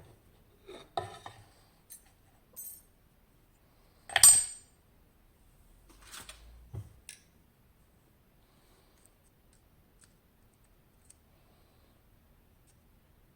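Small metal lock parts and picking tools being handled and set down on a hard surface: a few short clinks and rattles, the loudest a sharp metallic clink about four seconds in, then only a few faint ticks.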